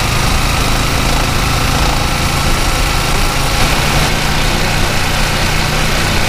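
Yamaha Exciter 155 VVA's single-cylinder engine running as the motorcycle rides along at around 35 km/h. The engine note shifts about four seconds in as the bike eases off a little.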